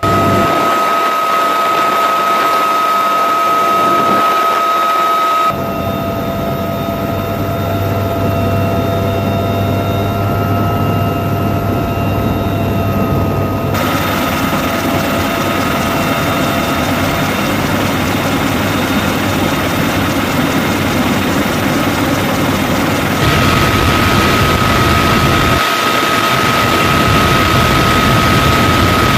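Military helicopter turbine engines and rotor running steadily, a high steady whine over the rotor noise. The sound shifts abruptly in level and tone three times.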